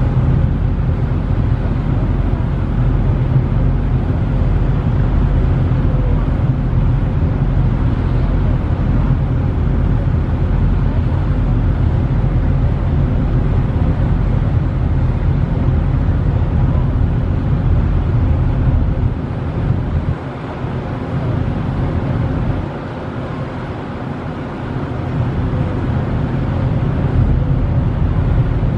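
Steady low rumble of a ferry's engines heard from the deck, mixed with wind on the microphone. The lowest rumble eases for a few seconds about two-thirds of the way through, then returns.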